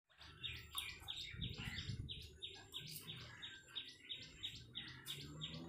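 Small birds chirping faintly: a steady series of short, falling chirps, about three a second.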